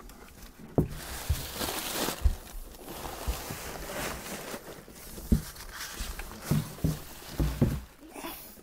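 Rustling of plastic packing and bubble wrap with irregular dull knocks against the cardboard box as a large Quantel graphics tablet is worked loose and lifted out.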